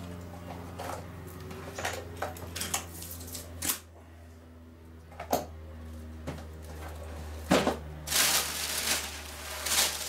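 Books and papers being handled: scattered clicks and knocks as books are moved about, with rustling of paper or a book being shifted, loudest about eight seconds in.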